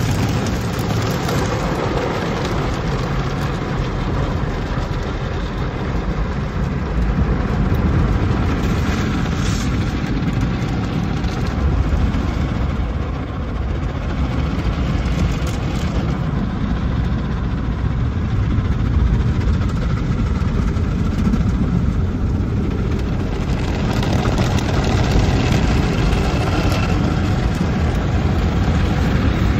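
Automatic car wash running over a car, heard from inside the cabin: a steady rumble of machinery and water spraying and sheeting over the glass.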